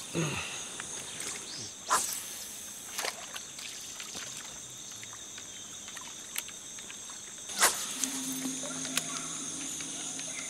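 Quiet river ambience with a steady high insect drone, broken by a few short, sharp sounds at about two, three and eight seconds in.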